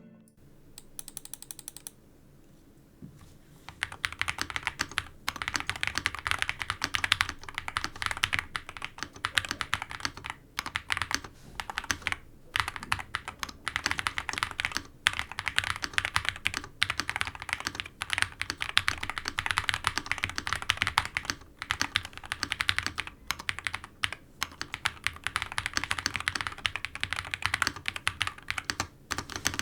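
Typing on an Akko SPR67 custom mechanical keyboard fitted with Akko V3 Cream Yellow Pro linear switches: a fast, dense clatter of keystrokes. It starts sparse and becomes continuous about four seconds in.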